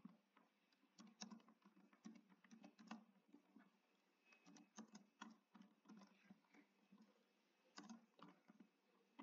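Faint computer keyboard typing: irregular runs of soft keystrokes with short pauses between words.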